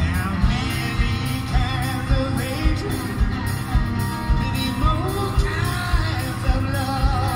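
Live blues band playing: a man singing over electric guitar, keyboard and drums, with a steady beat of about two kick-drum strokes a second.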